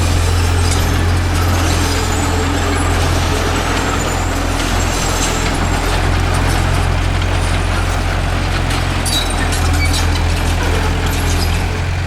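Bulldozer's diesel engine running steadily with a deep, constant hum, with a few light clicks near the end.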